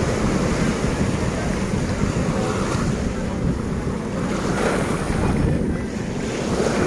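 Small surf breaking and washing up a sandy beach, with wind buffeting the microphone.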